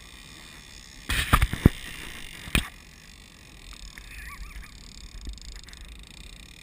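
Steady wind and water noise on a boat at sea, broken about a second in by a rush of rubbing noise and several sharp knocks, then one more sharp knock a second and a half later: the mounted action camera being knocked and turned on its mount.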